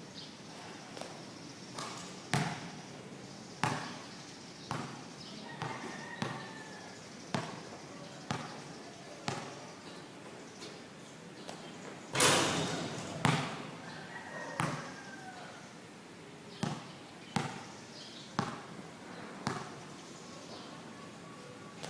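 A basketball bouncing on a court, with sharp bounces that echo briefly, roughly once a second at an uneven pace. One much louder bang about halfway through.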